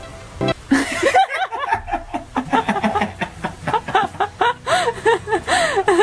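Hearty human laughter, a fast run of rising-and-falling 'ha' syllables starting just under a second in. Background music fades out just before it.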